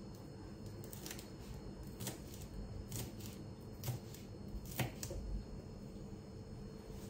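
A knife slicing green onions on a wooden cutting board: about six taps of the blade on the board, roughly one a second, ending about five seconds in.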